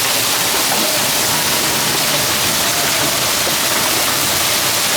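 Heavy hailstorm: quarter-size hailstones and rain pouring down in a steady, dense hiss, driven sideways by the wind.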